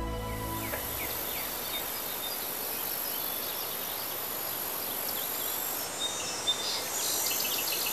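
Outdoor nature ambience: a steady high insect drone with many faint, short bird chirps scattered through it, and a single short click a little after six seconds.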